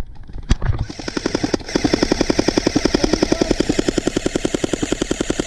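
Airsoft gun firing on full auto: a long unbroken burst of rapid, evenly spaced shots starting about a second in, after a couple of single knocks.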